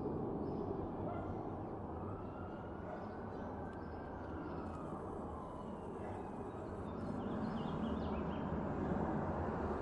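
Jet engines of a Boeing 757 freighter passing low overhead on approach to land, a steady rushing rumble that grows a little louder near the end.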